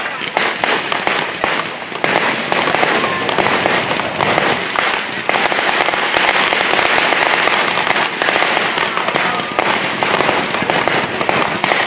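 Fireworks crackling and popping in a dense, rapid stream of small reports, like a long firecracker string, thickest in the middle of the stretch.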